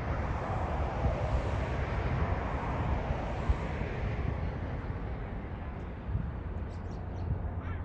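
Boeing 767-300F freighter's two General Electric CF6-80C2 turbofans at takeoff thrust as it climbs away, a broad jet rumble that fades over the second half.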